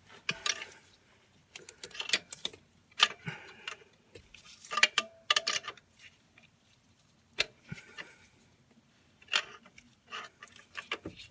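Irregular metallic clicks and short bursts of clatter from hand tools and engine parts as the alternator drive belt is levered and worked onto its pulleys.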